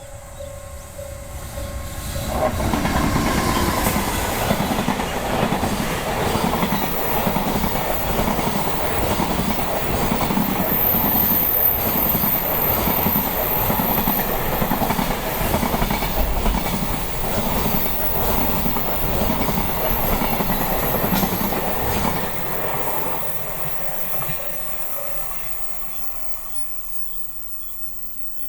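Freight train's container wagons rolling past over a level crossing: a steady rhythmic clickety-clack of wheels over rail joints, with brief high-pitched wheel squeal, coming up loud about two seconds in and fading away over the last several seconds. A level-crossing bell rings steadily at the start.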